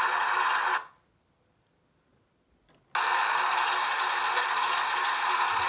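Diesel shunter engine sound from a class 05 model locomotive's LokSound V5 sound decoder through a small speaker. With the model lifted off the track it carries on for a moment on its stay-alive capacitor, then fades out in under a second. It cuts back in suddenly about two seconds later when the model is set back on the rails.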